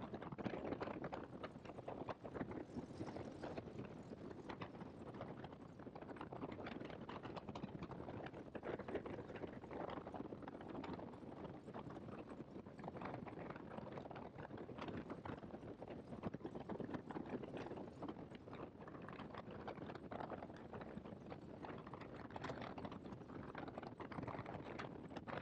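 Light biplane taxiing over a grass strip, its engine running at low power with a dense, uneven patter of knocks, heard faintly from the outside of the airframe.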